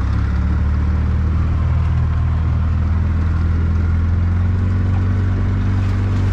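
Carbureted gas engine of a 2008 EZ-GO TXT golf cart running at a steady pitch as the cart drives through snow. The engine is still cold and not yet warmed up.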